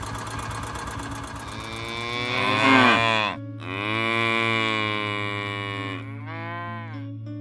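Cow mooing: a loud call that falls in pitch about three seconds in, then a long moo and a shorter one near the end, over a steady low hum.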